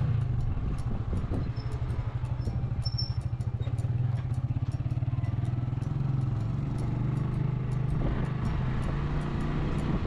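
A small engine running steadily, its low drone shifting a little in pitch.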